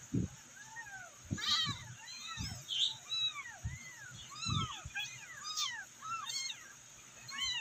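Several very young kittens meowing, thin high cries that rise and fall, overlapping at several a second: the calls of kittens crying for their mother. Soft low thumps now and then underneath.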